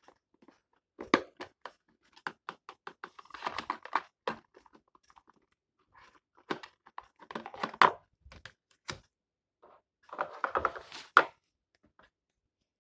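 Trading card packs being opened by hand: wrappers tearing and crinkling in short crackly spells, with pauses between.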